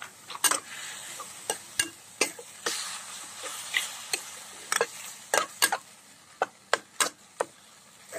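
Metal wok spatula scraping and clinking against a stainless steel wok as minced beef is stir-fried down until dry: more than a dozen irregular clinks, with a faint sizzle of the meat in oil underneath.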